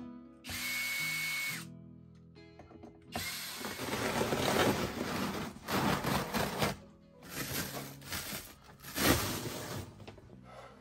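A cordless drill-driver whines steadily for about a second near the start. Then the felt-carpet wall lining is pulled and torn away from the cabin wall in several noisy ripping pulls, over background music.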